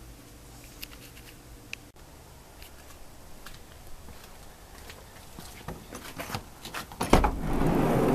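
A few faint clicks of handling, then about seven seconds in a loud rolling rumble of a sliding door.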